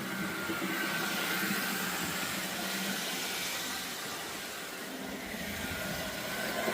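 Model train locomotives running along the track: a steady electric-motor whir with a high hum that swells about a second in and again near the end as they come closer.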